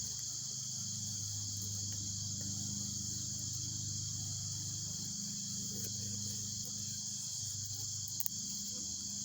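Steady high-pitched insect chorus, a continuous shrill trill, over a low steady hum, with a few faint clicks.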